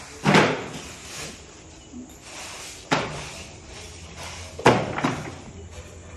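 Four loud knocks of hard objects striking: the loudest shortly after the start, one near three seconds and a quick pair near five seconds, each dying away quickly, over a steady low hum.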